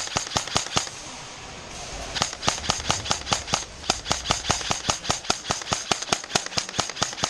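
Airsoft guns firing a long run of sharp shots, about six a second, with a short break about a second in before the shooting picks up again.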